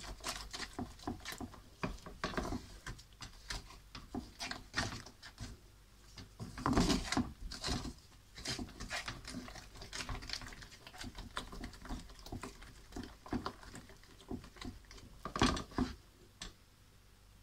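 Wooden spatula stirring thick caramel-chocolate sauce in a frying pan: irregular scraping and tapping against the pan, with louder knocks about seven seconds in and again near the end.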